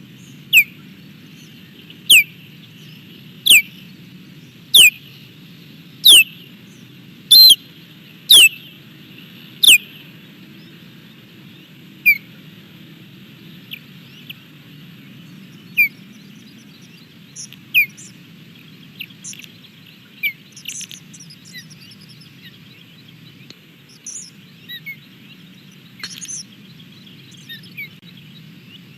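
Osprey calling: a series of loud, high, downward-slurred whistled calls, about one every second and a half over the first ten seconds, then fainter, scattered calls. A steady low hum runs underneath.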